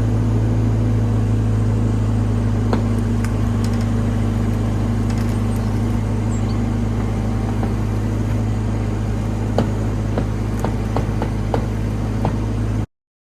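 Bobcat E26 mini excavator's diesel engine running steadily, with a few light knocks and clanks in the last few seconds. The sound cuts off abruptly near the end.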